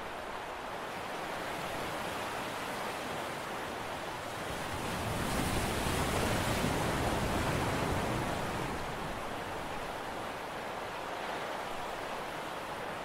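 Steady rushing noise of wind and sea, swelling for a few seconds in the middle, with no distinct engine tone or other separate sound.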